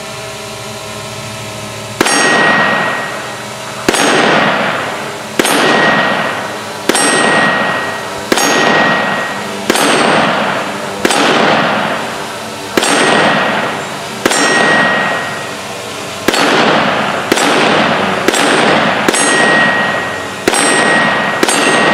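Walther WMP .22 Magnum pistol fired shot after shot, about fifteen rounds, roughly one every second and a half and a little quicker near the end, each crack followed by the long ring of the steel target being hit.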